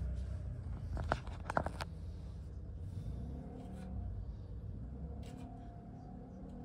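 Kitchen knife knocking against a wooden cutting board while kiwi is sliced: a few sharp knocks a little over a second in and a fainter one near the end, over a low steady rumble.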